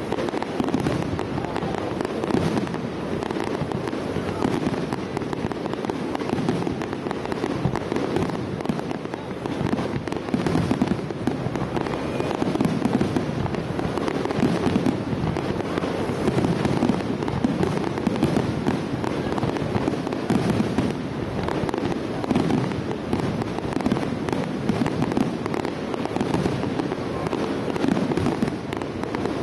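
Aerial firework shells bursting in rapid succession, many bangs close together and merging into a continuous din.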